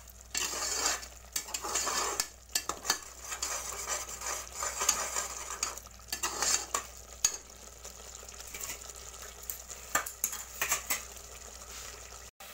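Onion-tomato masala paste sizzling as it fries in an aluminium pot, stirred and scraped with a perforated steel spoon that clicks against the pot's sides and bottom. The masala is being fried down to the point where the oil separates from it.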